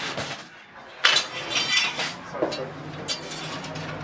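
Kitchen clatter: a sharp clink about a second in that rings briefly, then a few scattered knocks and clicks.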